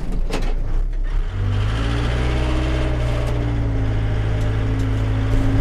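Diesel engine of a loader tractor heard from inside its cab, running. A couple of knocks at the start, then about a second in the engine speeds up and holds a steady higher speed.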